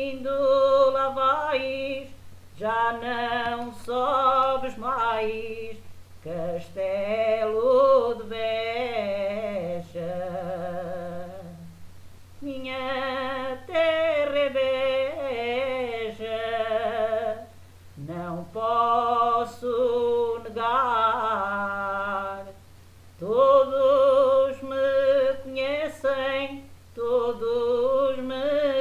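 A woman singing an Alentejo folk song unaccompanied, in phrases of a few seconds with vibrato on the held notes and short pauses for breath between them. A steady low hum runs underneath.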